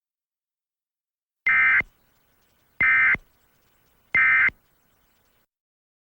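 Emergency Alert System end-of-message data tones: three short identical bursts of SAME digital signalling about a second apart, marking the end of the alert message.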